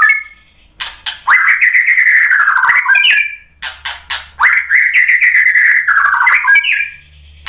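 White-rumped shama singing loudly: runs of sharp clicking notes, each followed by a long rich warbled phrase, twice.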